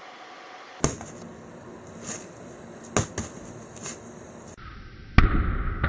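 A few sharp clicks and taps, then a loud thud about five seconds in followed by a fading low rumble: a lump of snow slime dropped onto a tabletop.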